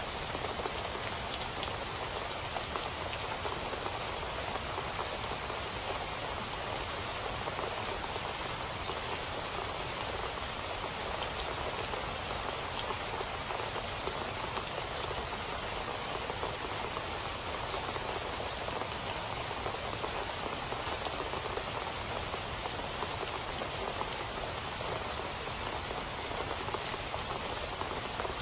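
Steady rain with drops splashing onto a waterlogged surface.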